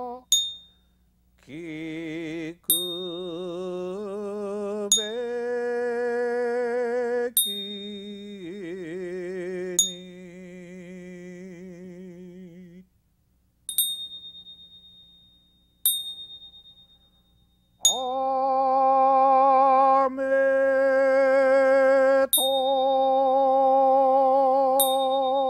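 A man singing a Buddhist goeika hymn in long, slow, wavering held notes, accompanied by a hand bell and a small struck bell that ring out sharply about every two seconds, each strike leaving a ringing tail. Around the middle the voice rests for a few seconds while the bell strikes carry on alone, then the singing resumes.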